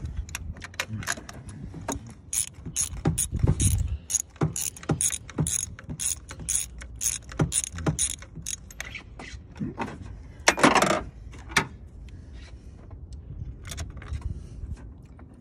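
Ratchet wrench clicking in quick, even back-strokes, about three a second, as it turns a spark plug through its socket and extension in the plug well. About ten and a half seconds in comes one louder half-second rasp.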